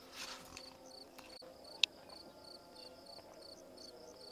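Crickets chirping in an even, steady rhythm of about three chirps a second, with one sharp click about two seconds in.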